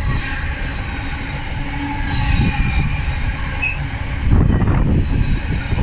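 Intermodal freight train's container flat wagons rolling past close by, with a steady rumble of wheels on the rails. A faint high wheel squeal comes about two seconds in, and a louder rattle about four seconds in.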